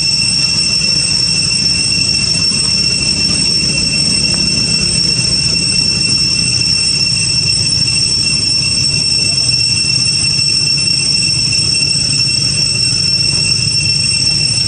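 Steady, unbroken high-pitched drone of cicadas, with a low steady rumble underneath.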